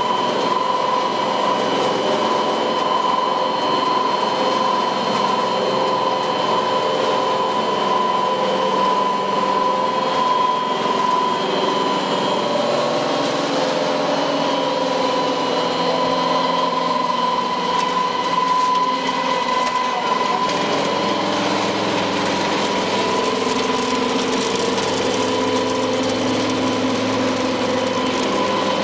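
Ring die feed pellet mill production line running: a steady, loud machine hum and whine with several held tones, the lower ones shifting about two-thirds of the way through.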